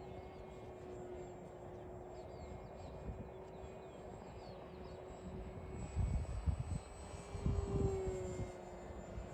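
Electric RC model airplane's motor droning steadily in flight, holding one pitch and swelling briefly near the end. Wind buffets the microphone in loud gusts from about six seconds in.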